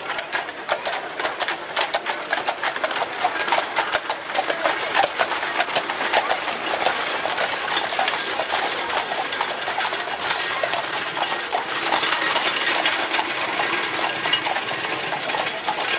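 Hooves of draught horses clopping on asphalt, mixed with the metallic rattle of iron-rimmed wheels on horse-drawn carts and farm implements rolling past: a dense, continuous clatter of clicks.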